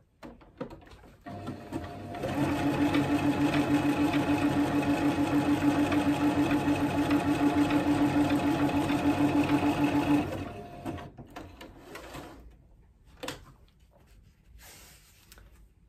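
Toyota electric sewing machine stitching a zigzag test seam on scrap fabric. It speeds up about a second in, runs steadily with a fast, even stitch rhythm for about eight seconds, then slows to a stop. This is a trial run after cleaning the bobbin area, with the machine running smoothly; a few light clicks follow.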